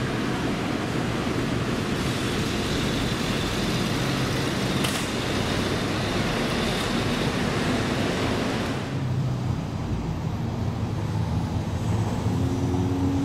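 Road traffic noise at an airport arrivals kerb: vehicles idling and moving, a steady rushing hiss. About nine seconds in it changes to a duller, lower distant city traffic hum.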